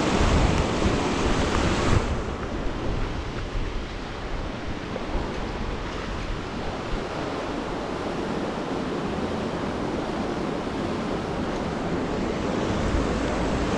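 River current rushing steadily, with wind buffeting the microphone in gusts at the start and again near the end.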